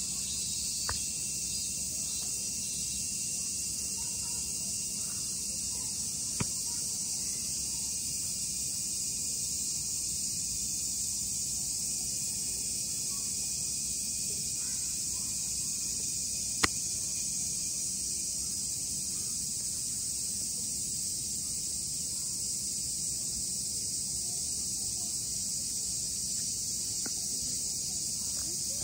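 Steady high-pitched chorus of insects, with three short sharp clicks, the loudest just past the middle.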